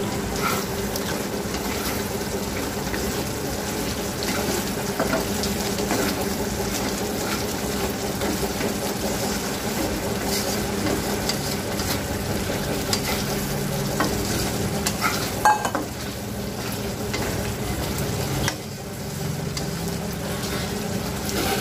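Wooden spatula stirring fried eggs through a boiling egg posto curry in a metal kadai, the curry bubbling and sizzling steadily, with scattered clicks of the spatula against the pan.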